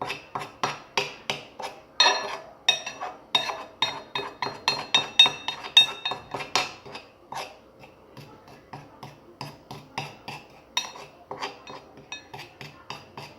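Spoon clinking and scraping against a small frying pan as a mixture is stirred, in quick regular strokes about two to three a second, softer for a few seconds in the middle.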